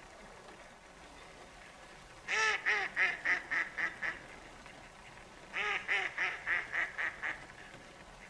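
Female mallard giving two decrescendo calls, each a run of about seven quacks that get quieter and shorter, a few seconds apart. Light rain patters on the water underneath.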